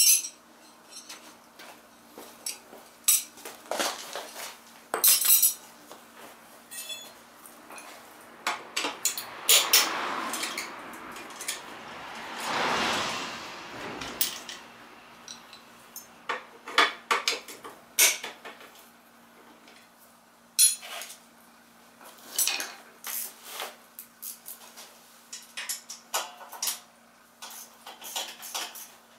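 Metal hand tools, wrenches and a socket, clinking and clattering against each other and the concrete floor in a string of sharp, irregular knocks while work goes on at a scooter's rear wheel. A rush of noise swells and fades for a few seconds around the middle.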